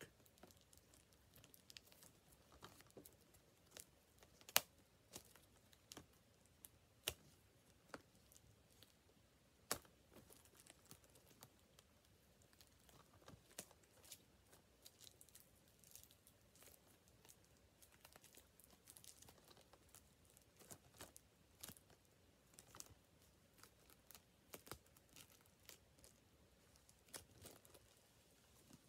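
Faint, scattered crinkling, tearing and sharp little crackles of plastic shrink-wrap being peeled off a Blu-ray case by hand, with a few louder snaps now and then.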